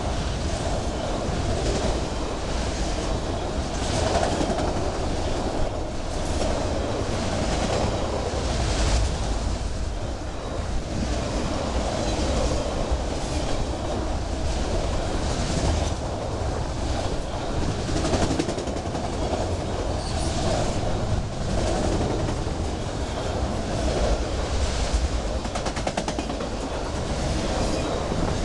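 Autorack freight cars rolling past close by: a steady rumble of steel wheels on rail with repeated clicks and rattles.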